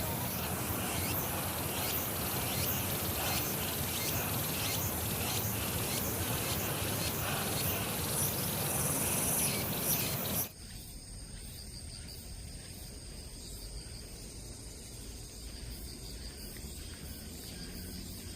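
Outdoor forest ambience full of insect chorus: a dense, hissing buzz for about ten seconds, then an abrupt cut to a quieter stretch of steady, high-pitched insect trilling.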